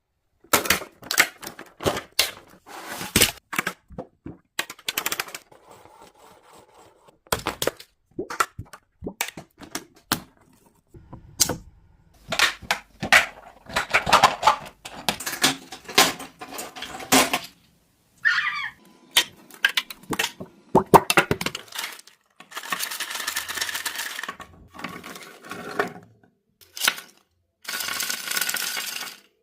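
3D-printed plastic pieces clicking and clattering as they are handled: many sharp taps and rattles in quick runs, with a few stretches of scraping and one brief squeak about two-thirds of the way in.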